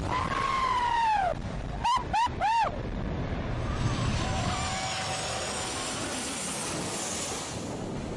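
Jet airliner on low approach: a steady rush of engine noise with a high whine that slides down and then back up in pitch. In the first three seconds, four loud whistle-like calls rise and fall, one long and then three short.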